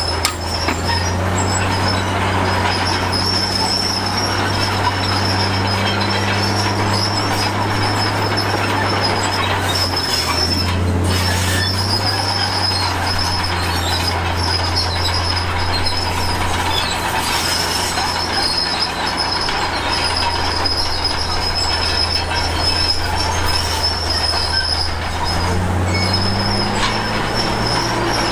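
Crawler bulldozer working: its diesel engine runs steadily under load while the steel tracks squeal and clank. The engine pitch shifts about ten seconds in and rises again near the end.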